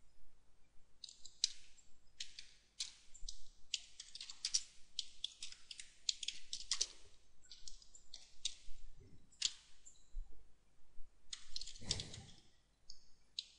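Computer keyboard typing: short, irregular keystrokes coming in small bursts, with a stronger click near the end.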